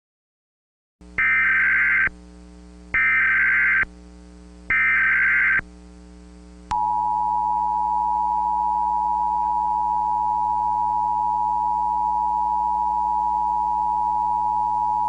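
Emergency Alert System tones. Three short bursts of SAME header data, a rapid two-tone warbling, come about a second apart, and then the steady two-tone EAS attention signal starts about seven seconds in and holds, announcing an emergency alert. A low steady hum runs underneath.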